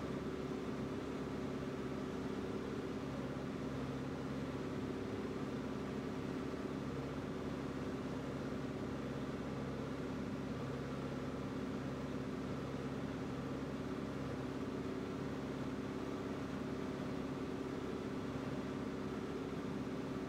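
Light propeller airplane's piston engine and propeller droning steadily in cruise, heard inside the cabin, with a constant low hum.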